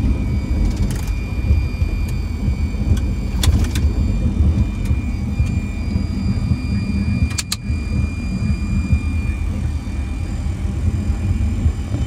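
Cockpit noise of a Fokker 100 airliner rolling on the runway after landing: a steady low rumble from its engines and wheels, with a faint steady high whine. A few sharp clicks come through, spread over the first two-thirds.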